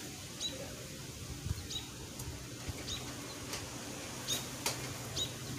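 A bird's short high chirps, each dropping slightly in pitch, repeated about once a second, with a few faint clicks in between.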